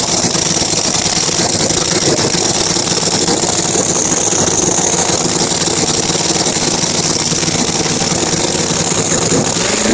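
Supercharged drag-racing car engine idling loudly and steadily as the car creeps forward, its pitch starting to rise right at the end.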